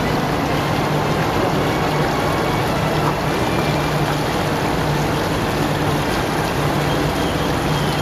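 Small fountain jets splashing into an ornamental pond: a steady rush of falling water, with a low steady hum underneath.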